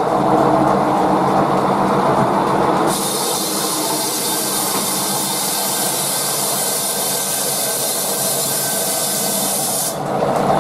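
Large sawmill bandsaw running with a steady mechanical hum. About three seconds in, a loud high hiss sets in over it and cuts off suddenly shortly before the end.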